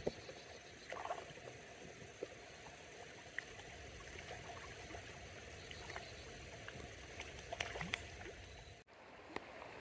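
Faint, steady rush of a mountain stream, with a few light clicks scattered through it. The sound drops out briefly near the end.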